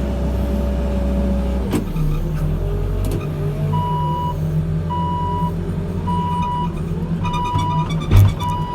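Backhoe loader's diesel engine working, with its pitch shifting and a few metal clanks; from a few seconds in its reversing alarm beeps about once a second. A heavy thump near the end is the loudest sound.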